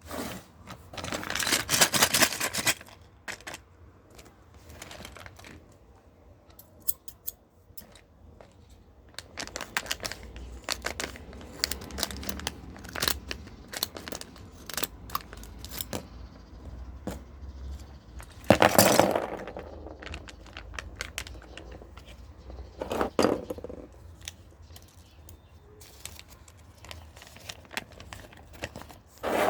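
A package being handled and opened: scattered clicks and taps with bursts of rustling and tearing, the loudest about a second in and again about two-thirds of the way through.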